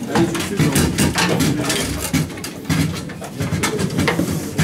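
Foosball in play on a wooden table: many quick, sharp knocks and clacks as the ball is struck by the player figures and hits the table walls, with rods sliding and rattling.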